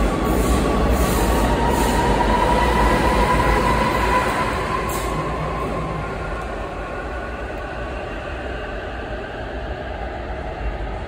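A double-deck regional train hauled by a BR 147 electric locomotive accelerates away from an underground platform. The coaches rumble along with a slowly rising whine, and the sound fades from about four seconds in as the train pulls into the tunnel.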